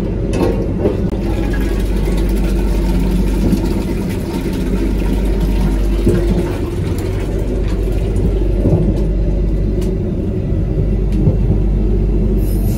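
A running vehicle's steady low rumble, with a few faint knocks.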